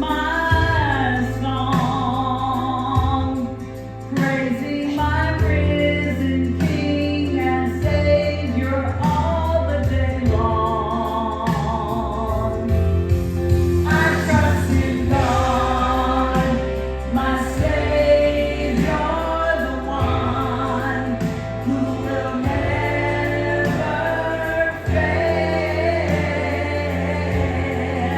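A woman singing a gospel song over instrumental accompaniment with held bass notes, with other voices possibly joining in.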